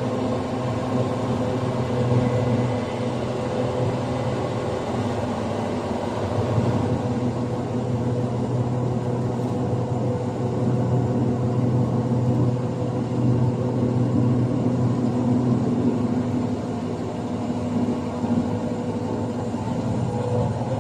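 Heavy-equipment diesel engine running steadily, a low even drone with a constant hum, as the crane holds the conveyor section aloft.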